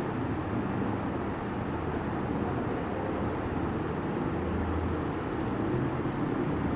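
Steady low background rumble with a faint hum, even throughout, with no distinct strokes or clicks.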